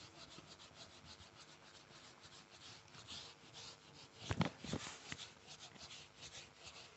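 Handheld eraser rubbing across a whiteboard in quick back-and-forth strokes, faint, with a few louder strokes about four seconds in.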